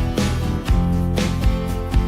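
Country-style music with strummed guitar and a steady beat, strong strokes about twice a second.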